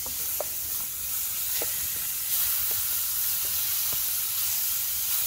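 Deer heart pieces frying in butter in a small frying pan on a campfire, a steady sizzle. A few light taps sound as the pieces are turned with a stick.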